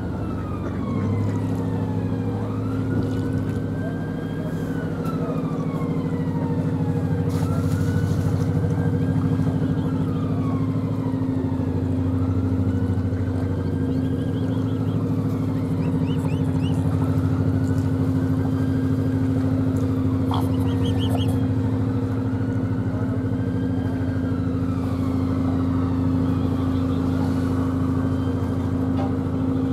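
Narrowboat's diesel engine running steadily at cruising speed, with a siren wailing over it, rising and falling slowly about every five seconds.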